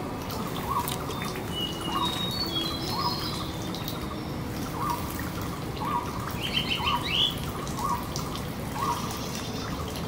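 Thin stream of water trickling and dripping over a bathing striated bulbul, with a short sound repeating about once a second. High bird chirps sound over it, with a quick run of them about seven seconds in.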